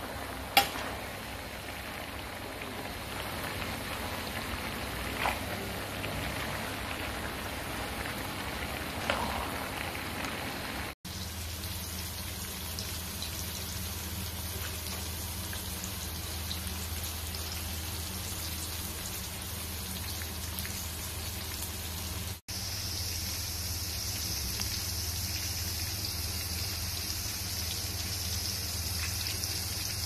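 Stir-frying in a wok, with a few sharp spatula clicks against the pan. After a cut about eleven seconds in, Thai fish cakes (tod man) sizzle steadily in hot oil; after a second cut the hiss turns brighter.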